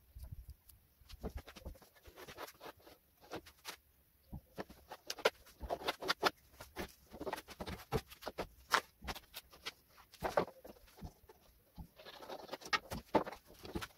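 Fast, irregular clicking and knocking from a sped-up timelapse of workbench work: a wooden tabletop being handled and marked, and the iron bench frame being moved.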